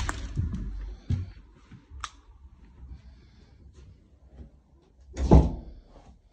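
Door being handled indoors: a sharp latch-like click at the start, another click about two seconds in, then a heavy thump a little past five seconds in as it shuts.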